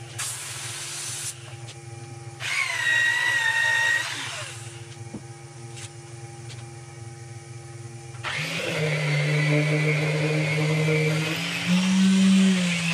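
Woodturning lathe machinery: a steady motor hum, with two short higher whirring spells in the first few seconds. About eight seconds in, a louder machine starts up and runs with a steady drone that rises slightly in pitch near the end.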